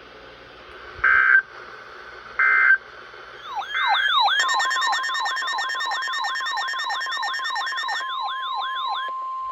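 Weather-radio alert: two short, loud beeps, then a fast yelping siren tone sweeping up and down about three times a second. From about four seconds in it is joined by a steady single-pitch tone, the NOAA Weather Radio warning alarm tone, and a harsher buzz. The alarm cuts off abruptly near the end.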